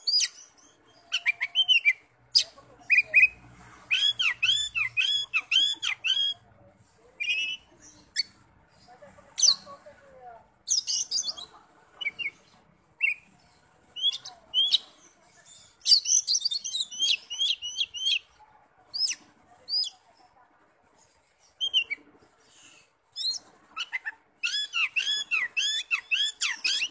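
Oriental magpie-robin singing: varied phrases of sliding whistled notes and quick runs of repeated chirps, in bursts with short pauses between them.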